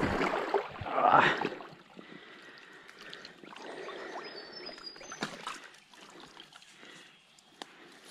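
Rustling and brushing through streamside grass and water plants, with light water splashing, loudest over the first second and a half, then quieter with a few sharp clicks and knocks.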